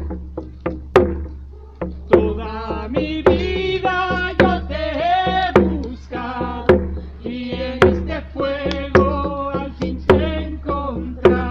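Chanted song sung over a drum beat, with a strong stroke about once a second and lighter strokes between.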